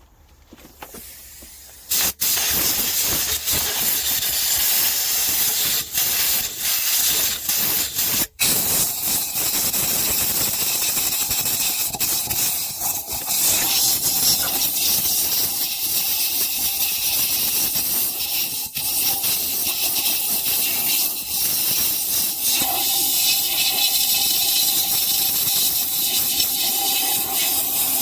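Compressed-air blow gun hissing loudly, blowing out a strip-down diesel engine. It starts abruptly about two seconds in and runs steadily, with a couple of brief breaks.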